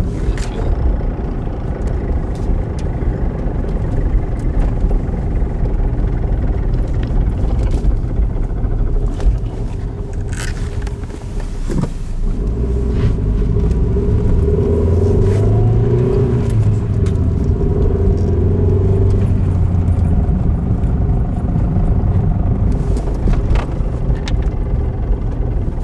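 1997 Ford Escort 5-speed driving, with steady engine and road rumble and a few scattered clicks. About halfway through the engine note rises and holds for several seconds, then settles back.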